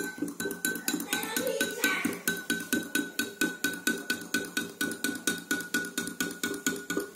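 Metal spoon stirring a drink in a glass, clinking against the side in a fast, even rhythm of about five or six clinks a second, with a faint steady high tone underneath.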